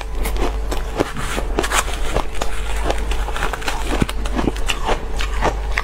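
Close-miked crunching of crushed ice being bitten and chewed, a fast uneven run of crisp crunches about three or four a second, with the metal spoon scraping and scooping the ice in the plastic bowl.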